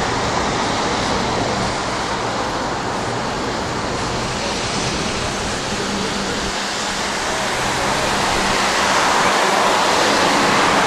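Floodwater rushing steadily, a loud, even noise that swells a little near the end.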